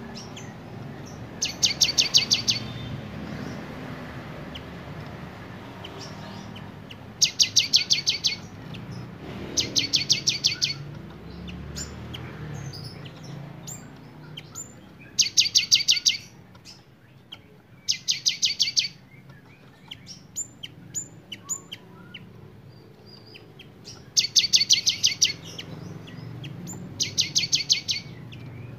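Cinereous tit (gelatik batu) singing: sharp, rapid strings of repeated high notes, each string about a second long, seven times, with short single chirps in between.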